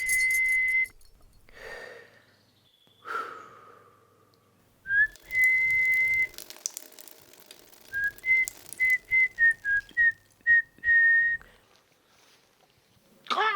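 A person whistling a tune: a couple of long held notes, then a quick run of short notes, with pauses between the phrases. A short, sharp rasping sound comes near the end.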